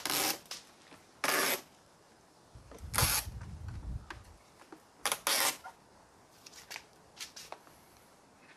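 Backing liner of double-sided adhesive tape being peeled off the edge of a carbon fiber spoiler in several short pulls, each a quick tearing sound under half a second long, with a brief low rumble about three seconds in.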